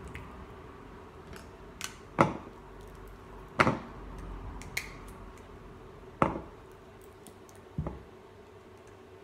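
Small plastic e-liquid dropper bottles being handled and uncapped: about six sharp plastic clicks and knocks, a second or so apart.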